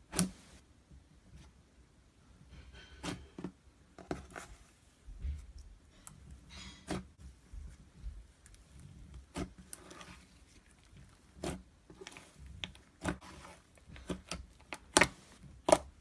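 Slime being handled, with irregular sharp pops and crackles, a dozen or so over the stretch; the loudest come right at the start and twice near the end.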